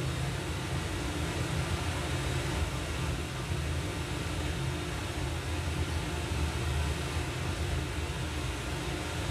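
Zebronics Juke Bar 9700 Dolby Atmos soundbar and its subwoofer playing a Dolby Atmos test clip into the room: a steady deep rumble under an even hiss.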